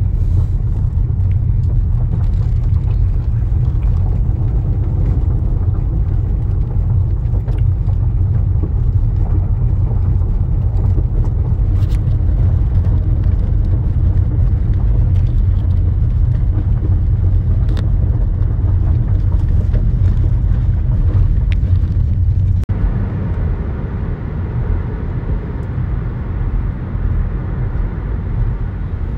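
Car driving, heard inside the cabin: a steady low rumble of road noise on a gravel lane, with a few sharp ticks. About 23 seconds in it changes abruptly to a smoother, lighter road hum on pavement.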